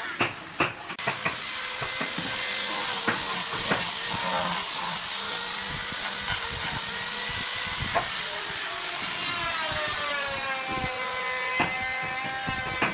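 Electric power tool running on wood, a steady hissing cut with a few sharp knocks near the start. About eight seconds in, the motor's whine falls in pitch, then holds steady.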